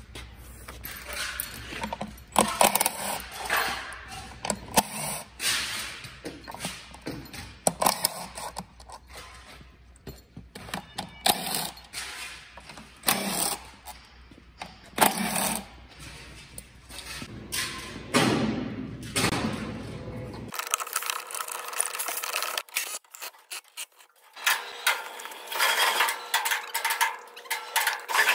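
Irregular knocks, clicks and clatter of hard plastic and metal as electric-car battery modules, a lifting hanger and hand tools are handled and set down. A low background hum stops abruptly about two-thirds of the way through, and the clatter continues.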